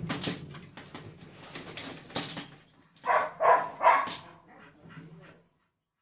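Dog on a wooden porch deck: knocks and clicks of steps on the boards, then three short, loud cries from the dog about three seconds in. The sound cuts off near the end.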